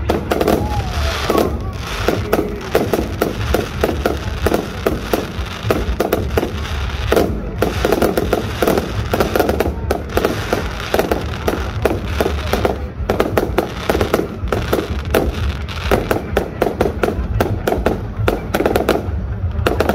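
Fireworks display going off in a dense, continuous barrage of sharp bangs and crackles, several a second, over a deep rumble, with a brief rising whistle about half a second in.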